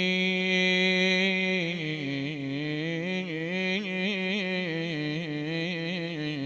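A male reciter chanting in Arabic mourning style, with no words. He holds one long note, then from about a second and a half in breaks into quick wavering melismatic turns.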